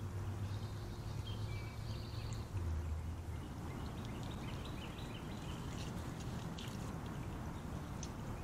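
Small creek running over a shallow gravel riffle, a steady rush of water. A low hum runs through the first two and a half seconds, with a few faint high chirps over it; scattered faint ticks follow in the second half.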